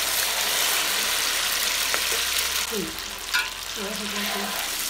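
Crumbled tofu coated in raw egg frying in hot oil in a wok, a steady loud sizzle. A metal spatula clinks and scrapes against the wok a couple of times as the tofu is stirred.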